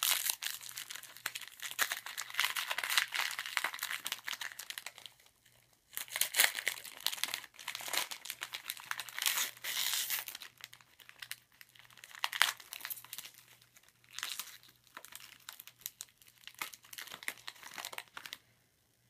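Wrapper of a Rookies and Stars football card fat pack being torn open and crinkled by hand, in irregular bursts with a few short pauses, stopping shortly before the end.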